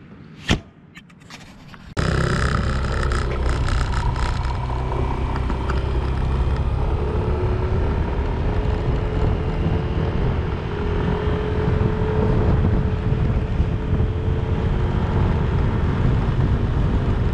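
The scooter's seat is pressed down and latches shut with a sharp click. Then, about two seconds in, the steady noise of the Yamaha Zuma 125 scooter riding at road speed takes over: a loud rumble of wind on the microphone with the single-cylinder engine's faint steady hum beneath.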